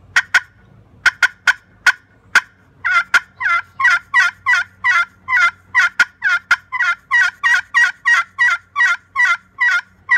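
Chestnut double slate turkey pot call worked with a striker. First comes a string of sharp, separate clucks. From about three seconds in it runs into a long, even series of two-note turkey yelps at about two and a half a second, with a cluck or two mixed in.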